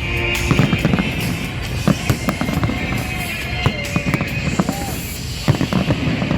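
Fireworks going off in quick succession, many sharp bangs and crackles, with music playing underneath.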